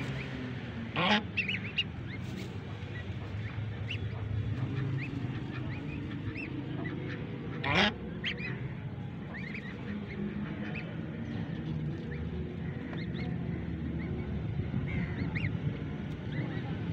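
Newly hatched ducklings peeping in many short, high chirps throughout, with the adult white waterfowl standing over them giving two louder calls, about a second in and again near the middle.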